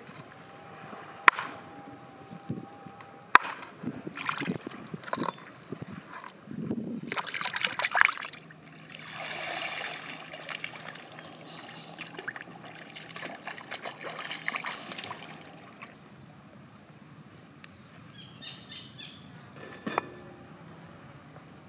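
A knife knocking sharply on a wooden cutting board a couple of times as fish is cut, then water sloshing and trickling as fish in a woven bamboo basket is rinsed in shallow seawater and lifted out, water streaming through the weave. Near the end, a single clank as a frying pan is set on a metal grill.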